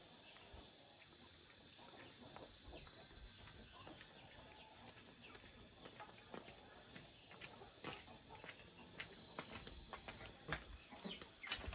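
Faint, steady high-pitched chirring of insects, with scattered light clicks and knocks that come more often near the end.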